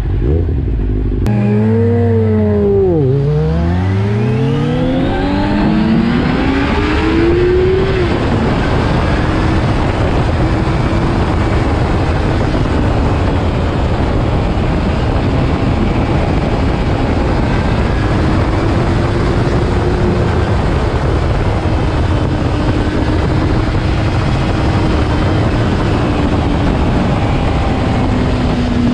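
Inline-four 600 cc sport bikes pulling away from a stop. About a second in the engine note jumps from idle and climbs through the gears for several seconds as they accelerate, then settles into steady cruising under loud wind rush on the microphone.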